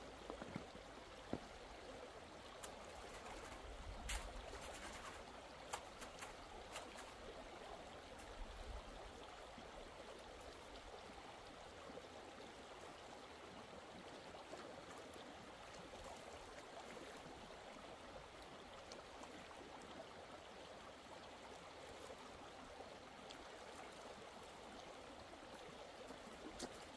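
Shallow mountain river flowing over stones: a faint, steady rushing. A few crunching footsteps on river gravel come in the first several seconds.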